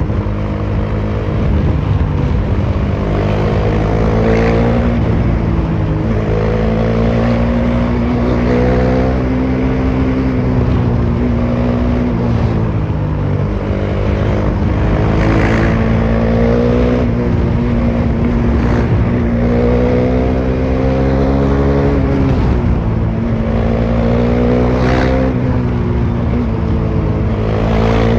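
Bajaj Dominar 400's single-cylinder engine running with no muffler, its raw exhaust note heard from on the bike at highway speed. The pitch repeatedly climbs under throttle and drops back, several times over.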